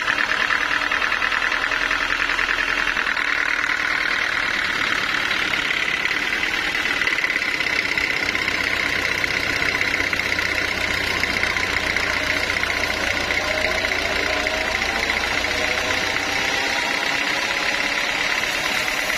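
Sawmill machinery running steadily, a loud engine-like drone with a strong high hum. A few faint rising tones come in a little past the middle.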